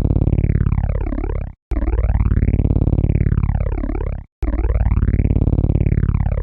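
Synthesized helicopter rotor sound: a fast, even chopping pulse with a sweeping phaser-like whoosh that rises and falls. It plays as a loop that cuts out for a split second at each repeat, twice here.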